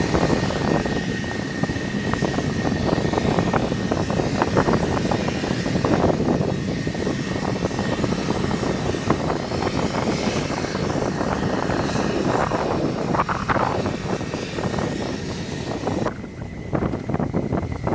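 F-16's single turbofan engine running at ground idle: a steady high whine over a dense rushing noise. The rushing thins out near the end.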